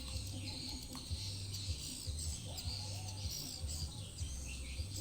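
Parakeets chirping in many quick, short calls, over a steady high hiss and a low rumbling underneath.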